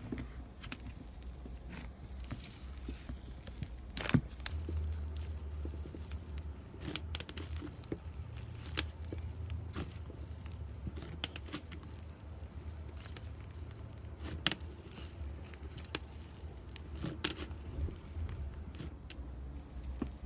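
Crunchy slime being squeezed and poked by hand, giving scattered crisp crackles and pops about once a second over a low steady hum.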